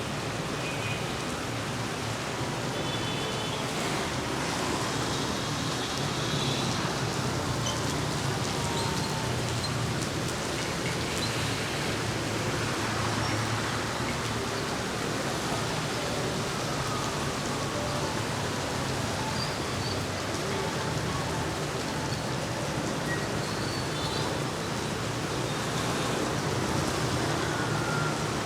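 Heavy rain falling steadily: an even hiss of rain on the street and nearby surfaces.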